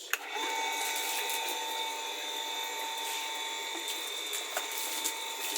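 Electric water pump motor switched on, starting with a sharp click and then running with a steady whine over a hiss.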